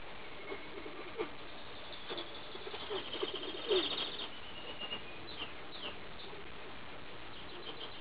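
Tippler pigeons cooing: short low calls, several in the first half, with a few high chirps from other birds about halfway through, over a steady background hiss.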